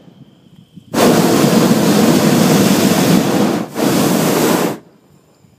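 Hot air balloon's propane burner firing overhead: a long blast starting about a second in, a brief break, then a second, shorter blast.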